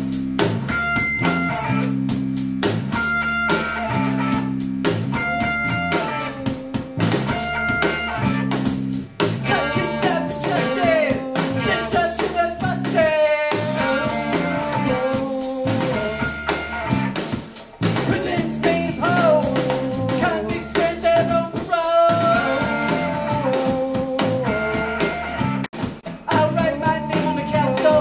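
A rock band plays a song with a steady drum beat, bass and electric guitar. Singing comes in about ten seconds in.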